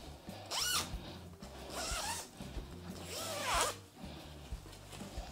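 Zip on a fabric armchair slipcover being run along in three strokes about a second apart, each a quick rasp that sweeps up and down in pitch.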